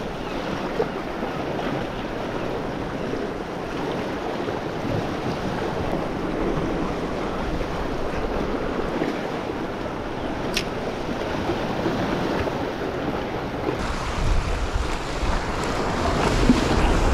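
Small sea waves washing and splashing over shoreline rocks, with wind buffeting the microphone; the surf and wind grow louder over the last few seconds.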